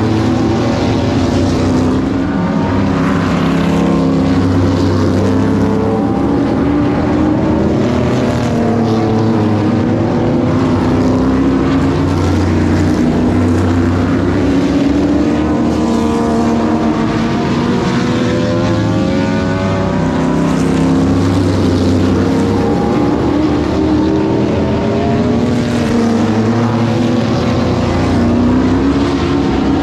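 Several vintage modified race cars' engines running hard around an oval track, their pitch rising and falling as they accelerate, lift and pass.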